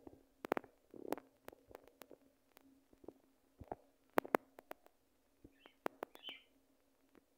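Budgerigars' beaks clicking and tapping as the pair touch beaks, in a scattered series of sharp clicks. A few short, soft chirps come about six seconds in.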